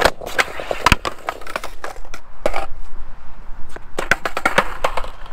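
Skateboard trick attempts on brick paving: the tail pops with a sharp crack, and the board clatters and knocks against the pavers several times between rolling noise of the wheels.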